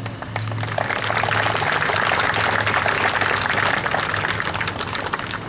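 Crowd applauding, many hands clapping at once; it swells about a second in and dies away near the end.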